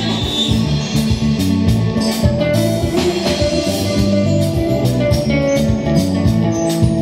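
Live band playing: electric guitar and bass over a drum-kit beat, with no vocals in this stretch.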